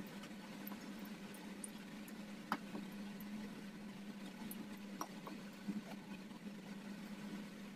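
A metal spoon stirring runny batter in a stainless-steel bowl, knocking against the bowl in a few sharp clinks, the loudest about two and a half seconds in. A steady low hum runs underneath.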